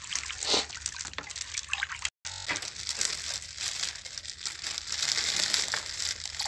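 Water in a plastic bucket being stirred with a wooden stick, swishing and splashing unevenly. The sound cuts out completely for a moment about two seconds in.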